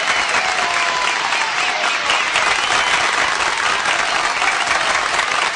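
Large audience applauding, steady and dense, with faint voices calling out over the clapping.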